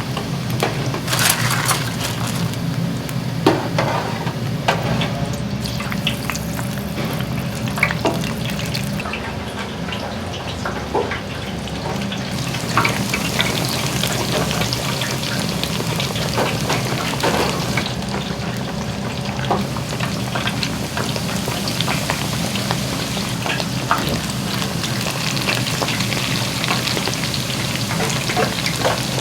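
Food sizzling as it fries, a steady crackle, with scattered clicks and clinks of cooking utensils.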